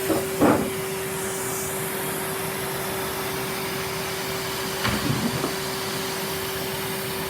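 Vacuum cleaner running steadily with a constant hum, sucking up chocolate sweets: a short rattle about half a second in and a few more rattles around five seconds as pieces go up the hose.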